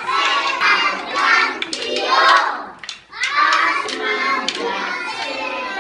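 Young children singing together in chorus while beating the Tió de Nadal log with sticks; sharp knocks of the sticks sound through the singing, which breaks off briefly about three seconds in.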